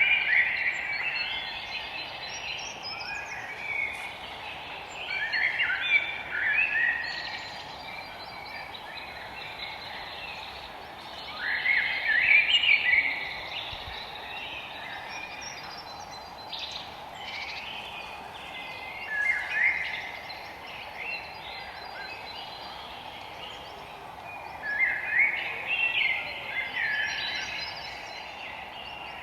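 Songbirds singing in a forest: bursts of chirping, warbling song every few seconds over a steady background hiss.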